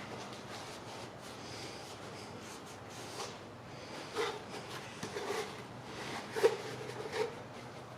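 A few light knocks and taps, such as objects being handled and set down, the loudest about six and a half seconds in, over a low steady hum.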